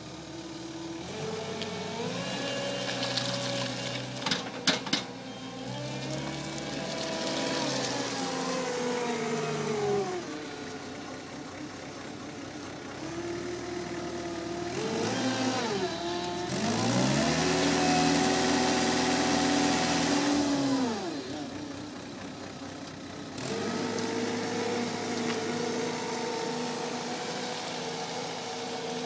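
Cat skid-steer loader's diesel engine revving up and dropping back several times as it works, with a few sharp knocks about five seconds in.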